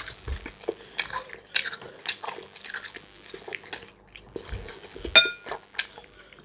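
Close-up eating sounds: a person chewing a mouthful of macaroni with meat, with many small wet mouth clicks. A metal fork scrapes and clinks on a ceramic plate, with one sharp ringing clink about five seconds in.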